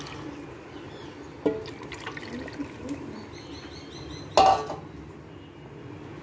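Tamarind pulp juice poured from a steel bowl into a pot of cooked masala, a thin liquid splashing and trickling. A short sharp knock with a brief ring about four and a half seconds in is the loudest sound.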